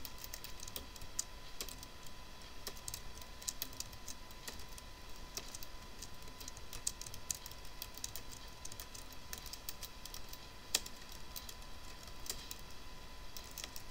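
Typing on a computer keyboard: a run of irregular key clicks, with one key struck harder about eleven seconds in. Under it runs a steady high whine, the noise the uploader puts down to his computer.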